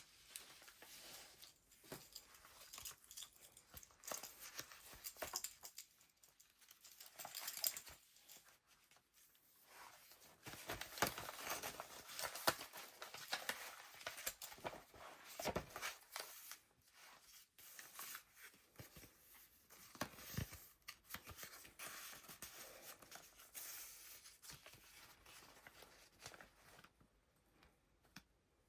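Paper pages of a handmade junk journal being turned and handled, rustling and crinkling in irregular bursts with small taps and clicks.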